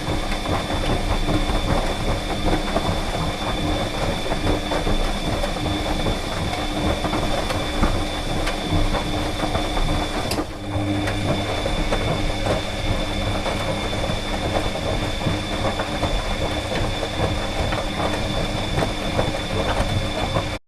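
Clothes dryer running: a steady motor hum and whine over the continuous rumble and clatter of the drum tumbling. The sound dips briefly about halfway through.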